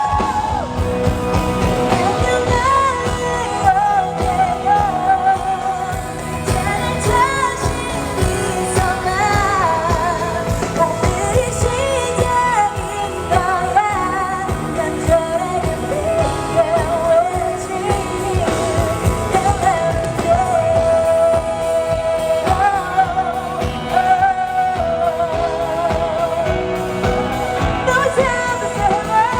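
Live pop ballad performance: a female singer holding long notes with vibrato over a full band with a steady beat, heard through loud concert PA speakers.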